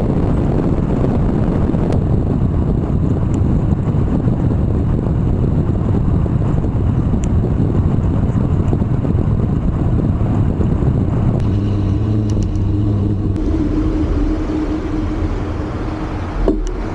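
Wind rumbling on the microphone while riding a road bike. About twelve seconds in, a low steady hum joins the rumble.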